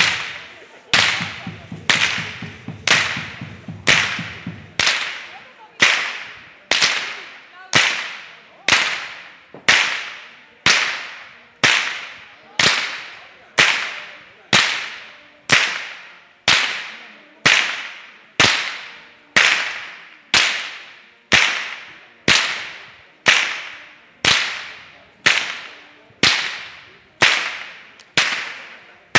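Long carnival whips cracked in unison by a group of Swabian Fasnet whip crackers: one sharp crack about every second, in a steady beat, each with a short ring-out off the surrounding buildings.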